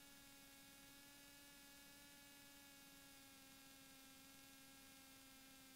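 Near silence: only a faint, steady electrical hum with many overtones in the cockpit audio feed.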